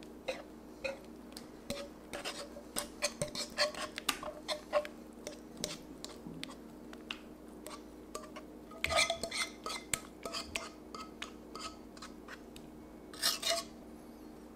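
A utensil scraping and tapping against a metal pot as thick acorn jelly batter is scraped out: irregular clicks and knocks, some with a short metallic ring, in bunches with pauses between. Near the end a few quick taps come as a whisk goes into the batter in a glass container.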